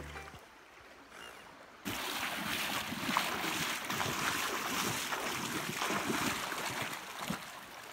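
Fast river current rushing and splashing close by, starting suddenly about two seconds in after a brief lull.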